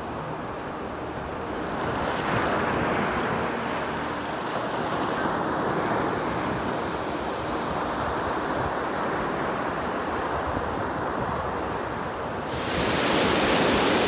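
Surf washing onto a beach, a steady rush with wind on the microphone, swelling into a louder, brighter rush near the end.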